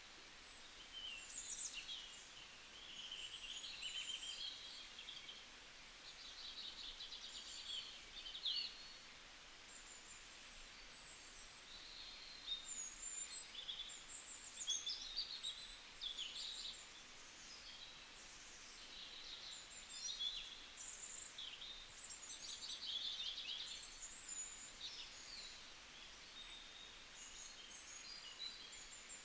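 Several small songbirds chirping and trilling, with short high-pitched calls and rapid twittering runs coming and going over a faint steady hiss of forest ambience.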